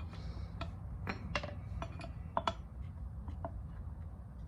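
Scattered light metallic clinks and taps, about eight of them a few tenths of a second apart, as a steel pin punch is set and lined up on the rope guard's small rivet pins. These are positioning taps, not full hammer blows.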